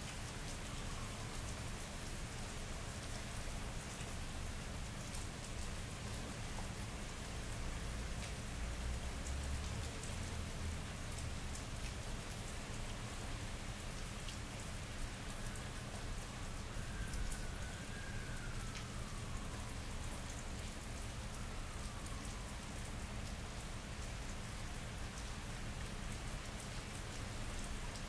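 Steady rain falling on pavement and other hard surfaces, an even hiss with fine scattered drop ticks, recorded binaurally.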